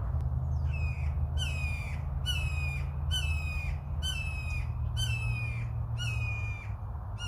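A bird calling over and over: about nine short calls, each falling slightly in pitch, a little under one a second, over a steady low rumble.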